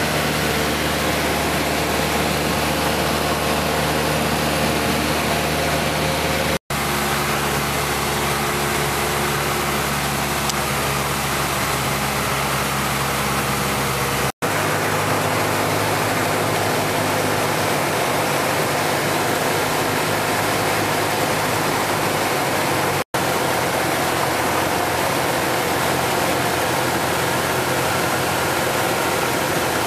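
Steady drone of a light aircraft's piston engine and propeller with rushing air noise, heard inside the cabin of a single-engine high-wing plane on approach. The sound cuts out for an instant three times, and the engine's low tones sit at a slightly different pitch after each cut.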